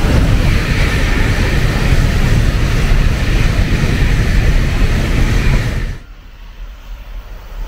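Tokaido Shinkansen bullet train passing through a station at full speed, a loud steady rush of air and wheel-on-rail noise. About six seconds in it drops abruptly to a much quieter hum.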